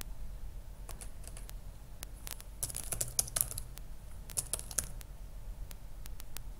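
Typing on a computer keyboard: irregular key clicks in short runs, busiest in the middle and sparser near the end.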